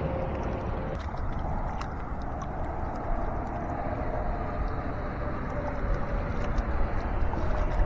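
Rushing river water: a steady noise of flowing current, with scattered small clicks and knocks over it.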